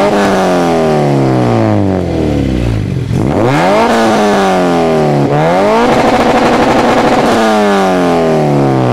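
Honda K20 four-cylinder engine revving: the revs climb sharply three times and sink back slowly after each. The third time they are held high and steady for about a second and a half before falling away.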